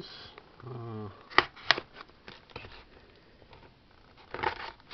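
Hands handling a mailed parcel's paper and plastic packaging: two sharp clicks about a second and a half in, then soft rustling, with a short louder rustle near the end. A brief wordless hum from a person's voice comes near the start.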